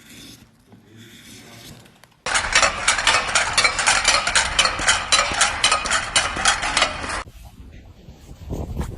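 Dense, rapid mechanical clicking that starts abruptly about two seconds in and cuts off suddenly about five seconds later, with soft, quiet handling sounds before and after.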